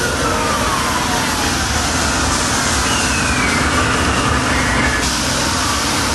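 Steady, loud rumble and noise of a spinning kiddie airplane ride in motion, heard from a seat on the ride, with wind buffeting the microphone; a faint high tone slides downward near the start.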